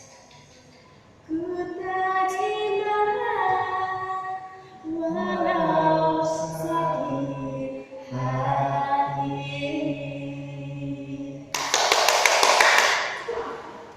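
A woman singing a slow ballad unaccompanied, drawing out long held notes that slide between pitches. Near the end the singing gives way to a brief loud burst of noise with rapid clicks.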